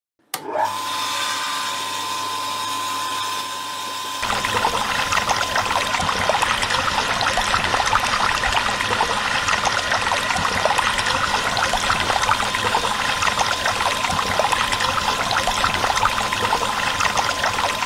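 Miniature model water pump's small motor running with a steady whine, and from about four seconds in, water pouring from its pipe and splashing into a small pool.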